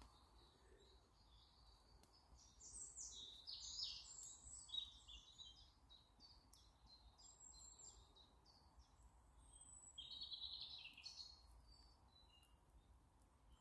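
Faint woodland birdsong: quick high chirps and trills in two spells, about two to five seconds in and again around ten seconds in, with a thin high whistle between them.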